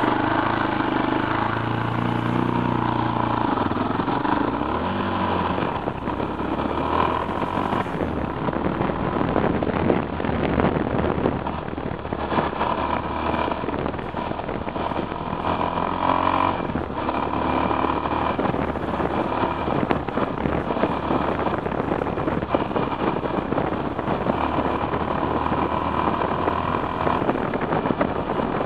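Yamaha XT660R's single-cylinder four-stroke engine running under way at road speed, heard from on board. Its pitch shifts near the start and again about halfway through, over a steady rush of wind and road noise.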